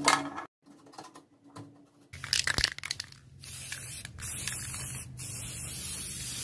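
A short rip of masking tape at the start. Then, after a few clicks, an aerosol spray-paint can hisses steadily from about four seconds in, with one brief break.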